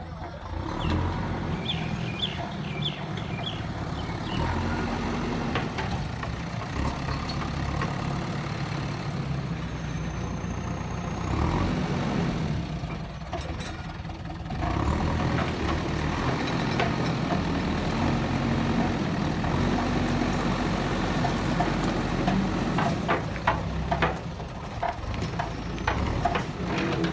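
JCB backhoe loader's diesel engine running while working, its drone rising and falling with load and easing off briefly about halfway through. A quick series of sharp knocks comes near the end.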